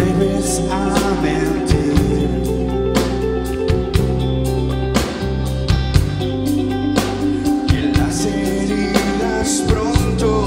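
Live rock band playing loud: electric guitars and bass sustaining chords over a steady drum beat.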